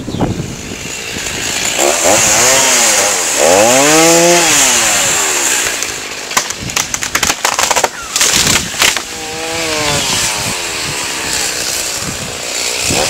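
Gas chainsaw cutting willow wood, its engine pitch rising and falling as the throttle opens and the chain bogs in the cut. A run of sharp cracks comes about halfway through.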